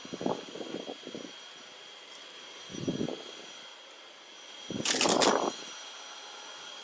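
Toppin cordless stick vacuum with a brushless motor running on low speed, a steady high whine over a hiss of air. Short knocking and rustling bursts come as the floor head moves over placemats, and the loudest is a rattling burst about five seconds in.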